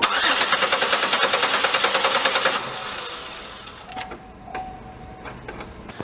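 2008 Chevy Impala's 3.5-litre pushrod V6 cranking on the starter without firing, a fast even pulse of compression strokes for about two and a half seconds before it stops. It cranks but will not start because the ignition gives no spark.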